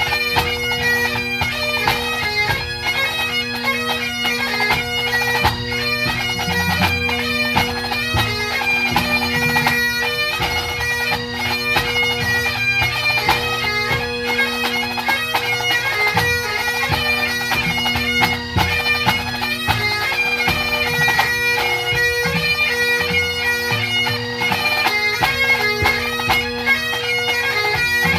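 A pipe band playing a set of tunes on Highland bagpipes: the drones hold a steady tone under a chanter melody with quick grace notes.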